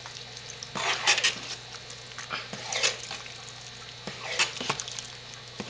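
Metal spoon stirring thick cooked hot-process soap paste in a turkey roaster slow cooker: a few irregular squishing, scraping strokes, about one every second or two.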